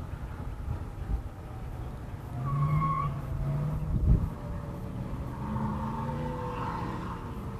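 A car passing on the nearby road, its sound sliding down in pitch, over a steady low rumble. A short high squeal comes about two and a half seconds in and a sharp thump about four seconds in.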